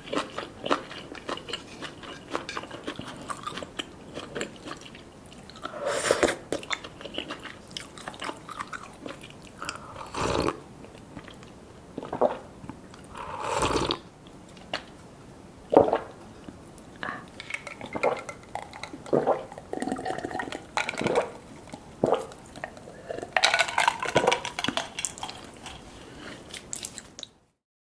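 Close-up eating sounds: food being bitten and chewed, with many short, sharp clicks and several louder bites. It stops abruptly near the end.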